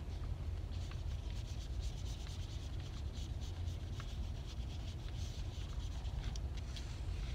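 Colouring strokes rubbing and scratching across thin copy paper in short, irregular passes, over a steady low hum.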